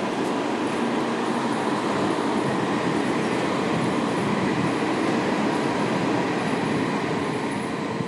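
Tokyo Metro 10000 series electric train running, heard from inside the car: a steady noise of wheels on rails and running gear that swells slightly in the first second, then holds.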